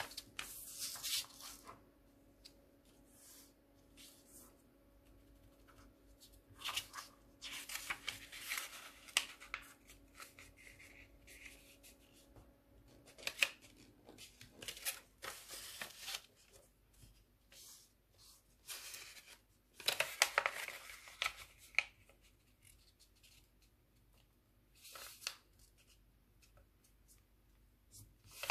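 A sheet of origami paper being folded and creased by hand: short bursts of crinkling and rustling paper, coming in several clusters with quiet gaps between.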